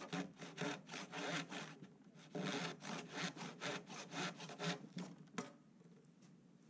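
Handsaw cutting through a painted wooden board in quick back-and-forth strokes, with a short break about two seconds in. The strokes stop about five and a half seconds in with a sharp click as the cut goes through.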